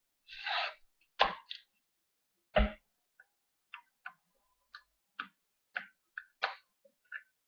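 Fingers peeling the backing film off double-sided tape stuck to card: a short rasp as the film comes away, two sharp taps, the second the loudest, then a run of small dry clicks and ticks about two a second as the film is picked and pulled.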